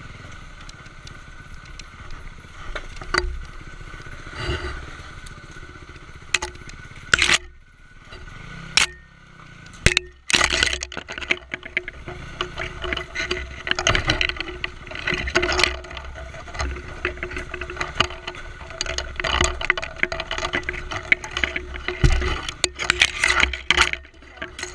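Dual-sport motorcycle engine running at low revs while the bike crawls over a rocky trail. Frequent sharp knocks and clattering come from the tyres striking rocks and the bike jolting over them. The engine sound dips briefly a few times, around a third of the way in.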